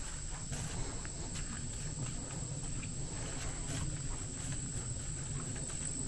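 Steady high-pitched drone of an insect chorus in summer woodland, with faint footsteps on a dirt trail.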